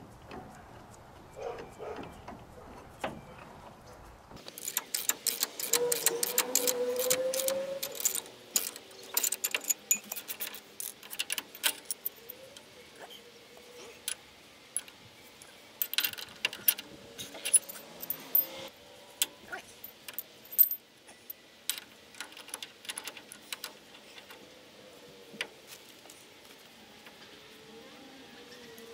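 Steel ball joint press, adapter cups and hand tools clinking and clattering in irregular sharp taps as the press is fitted to the steering knuckle to press in new ball joints. Sparse at first, then busy and louder from about four seconds in.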